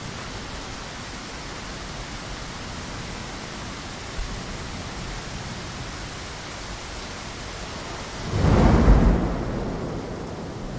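Steady rain hissing, with a loud, deep rumble of thunder breaking in about eight seconds in and fading away over the next couple of seconds.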